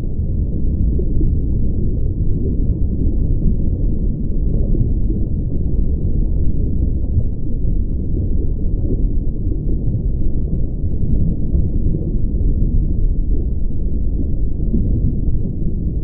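Loud, steady low rumbling noise on the microphone, with nothing higher above it and no breaks.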